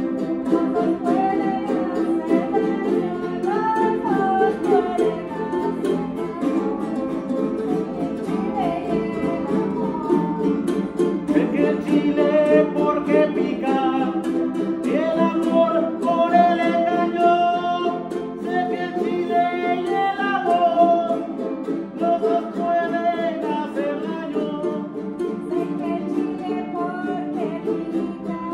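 Several jaranas jarochas strummed together in a steady, rhythmic son jarocho pattern, with a voice singing over them in phrases.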